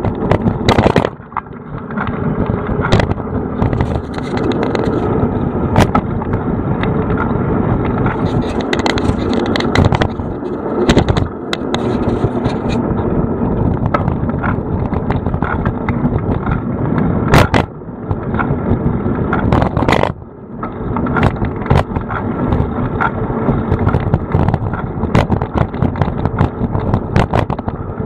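Riding noise from a bicycle as heard by a camera mounted on the bike: a steady rush of wind and tyre noise with frequent sharp knocks and rattles from bumps in the street.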